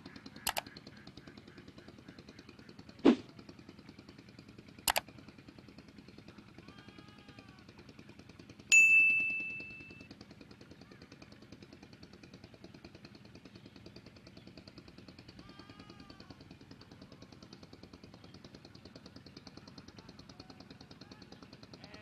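Subscribe-button sound effects: a few sharp mouse clicks in the first five seconds, then a bell ding about nine seconds in that rings out for about a second. Under them runs a steady, rapidly pulsing low hum, and short chirping calls come in a few times.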